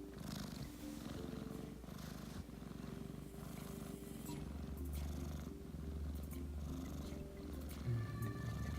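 Sleeping five-month-old kitten purring, a steady low rumble that grows noticeably stronger about halfway through.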